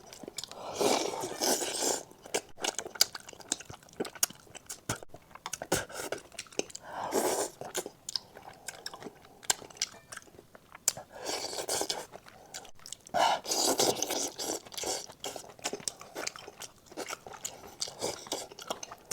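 Close-miked chewing and crunching of food, with many sharp wet clicks and louder bursts of chewing every few seconds.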